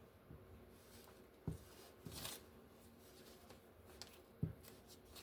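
Faint handling of paper pieces: soft rustling and a few light taps over quiet room tone.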